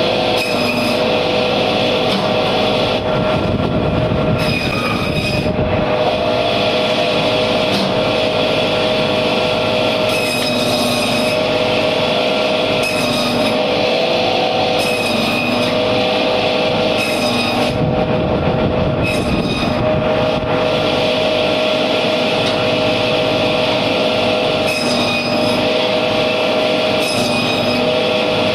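Electric band saw (bone-saw machine) running with a steady whine as a catla carp is cut into pieces on it. Short higher squeals come every couple of seconds as the blade cuts through the fish.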